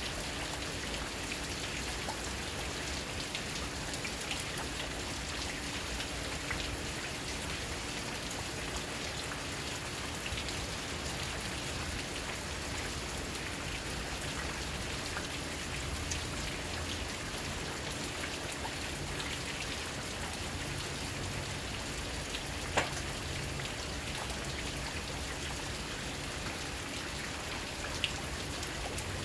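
Steady rain falling, with two sharp taps standing out above it, one about two-thirds of the way through and one near the end.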